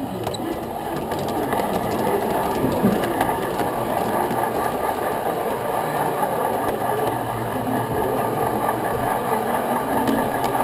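Large-scale electric model train running: a steady whirring rattle of its electric motor, gears and wheels rolling on the track, with faint scattered clicks.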